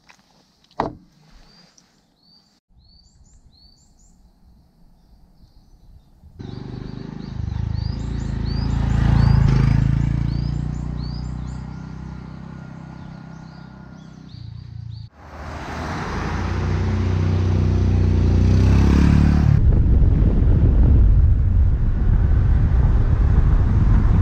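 Birds chirping, with one sharp knock about a second in. From about six seconds a Honda Super Cub's single-cylinder engine runs under way, rising and falling, with a rush of wind over the microphone. The sound is broken by abrupt cuts.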